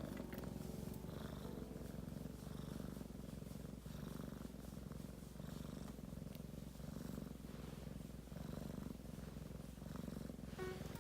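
Domestic cat purring: a steady low rumble that swells and eases in a slow, regular cycle, about once a second, with its breathing.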